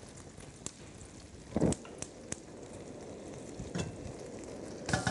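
Beef rolls sizzling in a pan of foaming melted butter, a steady frying crackle with scattered small pops. Two soft thuds stand out, one about a second and a half in and one near the end.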